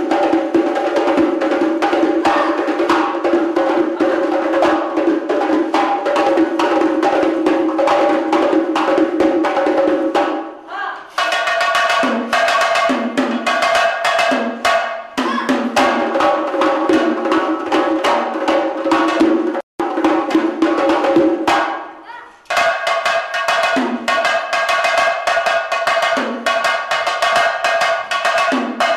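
Several doiras (Uzbek frame drums) played together in a fast, dense rhythm of sharp hand strikes over ringing drum tones. The playing breaks off briefly about ten seconds in and again just after twenty seconds in.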